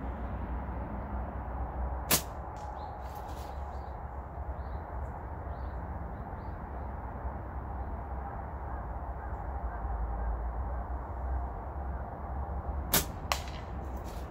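Flat-band slingshot shots: a sharp snap of the rubber bands releasing about two seconds in, and another near the end followed a moment later by a second, fainter snap.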